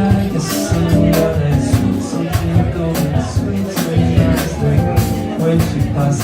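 Live Brazilian band music: a steady beat of percussion strikes under pitched instrumental notes.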